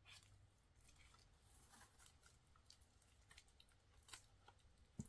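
Faint scattered clicks and rustles of album packaging being handled, with a sharper click near the end.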